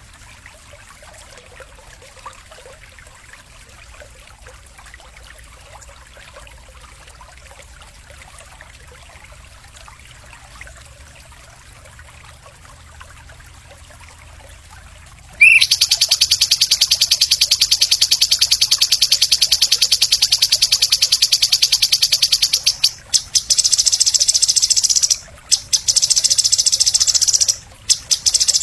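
About fifteen seconds of faint background with a few weak high calls. Then a loud, high, rapid buzzing trill from a masteran call recording starts suddenly and runs on, breaking off briefly three times.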